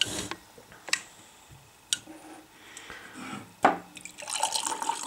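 A few light knocks as the can is handled, then, near the end, a carbonated fruit-punch energy drink poured from an aluminium can into a glass, running and fizzing steadily.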